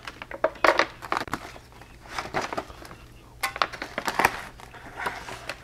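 Knife slicing across the top of a mylar food-storage bag, then the foil bag crinkling in several spells as it is handled and pulled open.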